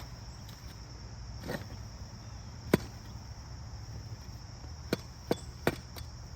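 Five sharp strikes of a digging tool into the ground: a light one about a second and a half in, the loudest just before three seconds, then three more close together near the end. Insects trill steadily underneath.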